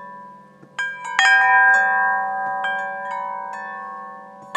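Hanging metal chimes ringing: several clear tones struck, sustaining and overlapping, with a fresh cluster of strikes about a second in and lighter ones after.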